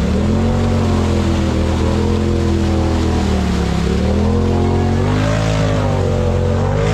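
Engine of a lifted side-by-side UTV on giant mud tires, revving as it tries to drive out of deep mud, its pitch wavering up and down and climbing about five seconds in as the wheels spin.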